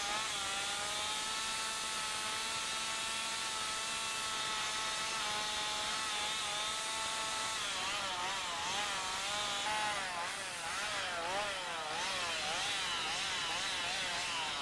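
Gas chainsaw cutting into a wooden carving block. It runs at a steady pitch for about the first half, then its engine pitch swings up and down again and again as the throttle is worked during the cut.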